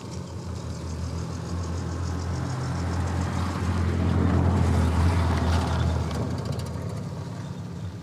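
A motor vehicle driving past, its engine hum growing louder to a peak about four to five seconds in, then fading away.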